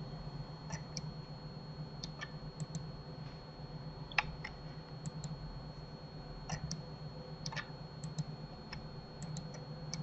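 Computer mouse buttons and keyboard keys clicking every second or so, the clicks often in quick pairs. A steady low hum and a faint high whine sit underneath.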